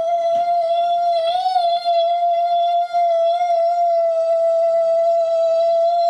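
A woman's voice singing one long, high, steady note into a man's ear, with a slight waver about a second and a half in. It is a sound-healing tone sung over the ear to ease his tinnitus.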